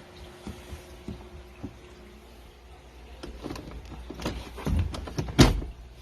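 Clicks and clunks of a car's controls being worked inside the cabin, growing busier in the second half, with one sharp loud knock near the end. The engine does not start, a fault the owner puts down to the push-start button staying stuck on.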